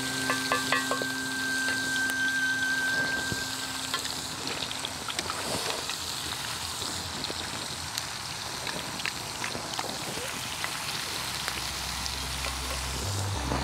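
Snails sizzling in their shells in a hot clay grilling pan, with small clicks and clinks of a metal spoon as liquid is spooned into the shells.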